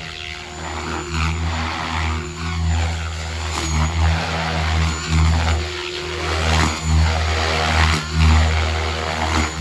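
3D radio-controlled helicopter flying, its rotor and motor making a steady drone that swells and dips in level, about once a second in the second half.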